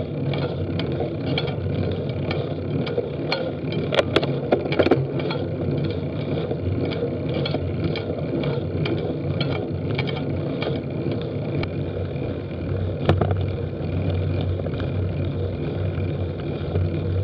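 Road bicycle riding fast downhill: a steady rush of wind and tyre noise with a light regular ticking, about two to three ticks a second, and a few louder knocks about four to five seconds in and again near the thirteenth second.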